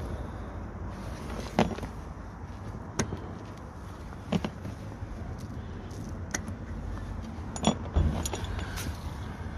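A handful of sharp, separate clicks and knocks of hard plastic parts being handled and pushed into place, spread through the few seconds, over a steady low rumble.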